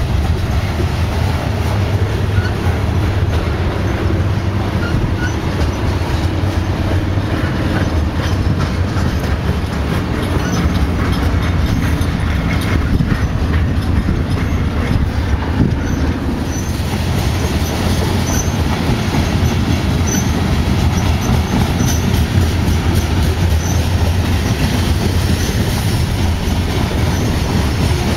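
Freight train of loaded hopper cars rolling steadily past, a continuous heavy rumble with wheels clicking over the rail joints.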